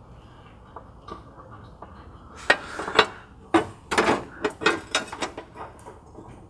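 Metal underbody brace bar being fitted back into place under the car: a run of sharp metal clinks and knocks starting about two and a half seconds in.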